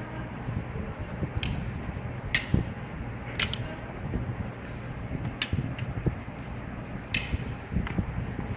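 A hand-operated fiber optic cleaver being worked: about five sharp mechanical clicks, a second or two apart, as its lid and clamps are snapped open and shut, over a low steady hum.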